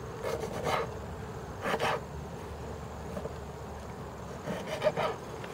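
Kitchen knife cutting limes on a plastic cutting board: three short bursts of cutting strokes, over a faint steady hum.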